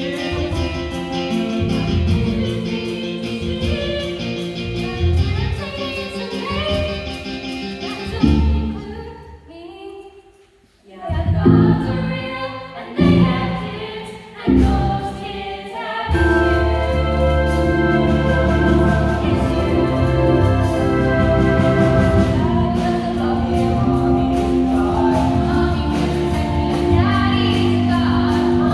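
Musical theatre number: cast voices singing over band accompaniment. The music thins out almost completely about ten seconds in, returns in short hits, and then runs full and steady.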